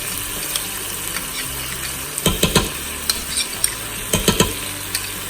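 Onions, garlic and tomato paste sizzling in an Instant Pot's inner pot on sauté, with a utensil scraping and knocking against the pot as it is stirred. The knocks come in clusters from about two seconds in.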